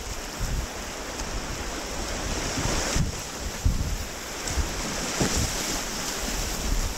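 Whitewater rapids rushing steadily, with wind buffeting the microphone in irregular low rumbles.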